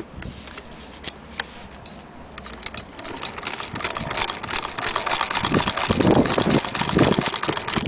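Antique Bradbury fiddle-base hand-crank sewing machine running and stitching, a rapid mechanical clicking clatter of needle and shuttle that starts about two and a half seconds in and grows louder.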